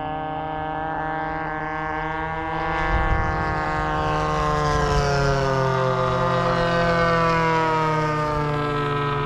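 Radio-controlled model warplanes flying overhead, among them 35cc gas-engined Spitfires: several engine drones at different pitches at once, louder from about three seconds in, with the pitch sliding down as a plane passes.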